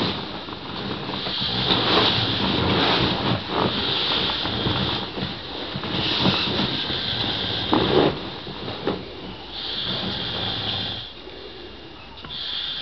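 A sleeping person snoring heavily: a run of rasping snores, one every two to three seconds, each with a hissing edge.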